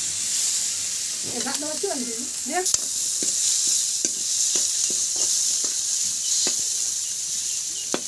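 Sliced onions with garlic, ginger and spice paste frying in oil in a metal kadai, sizzling steadily, while a metal spoon stirs them, scraping and knocking against the pan several times in the second half.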